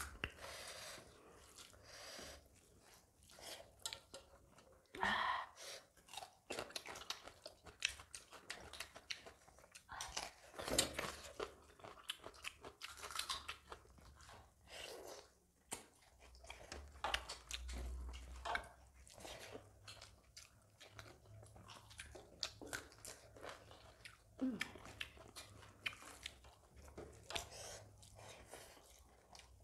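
Two people chewing and eating with their hands: wet mouth smacks, bites and occasional crunches of rice, chicken curry and vegetables, coming at uneven intervals.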